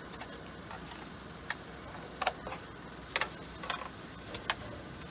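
Scattered light clicks and clinks of cooking utensils against a ramen bowl and pots while a bowl of ramen is finished off. Several of them ring briefly, over a steady low hum.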